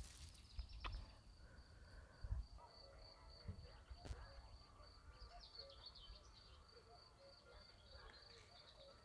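Faint nature soundscape: a steady high cricket trill with scattered soft bird chirps, and a few soft clicks in the first half.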